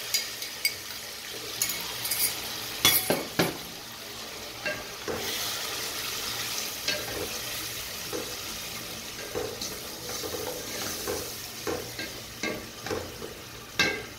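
Tomato purée frying with onions in hot oil, a steady sizzle, while a spoon stirs it, giving irregular knocks and scrapes against the metal pot, the loudest about three seconds in and near the end.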